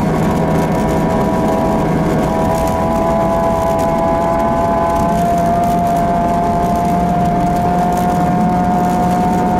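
Ford Fiesta 1.6 Sport's engine running steadily in one gear, its pitch climbing slowly and evenly as the car gains speed. Heard from inside the cabin, with a constant hiss of tyre and road noise from the snow-covered surface.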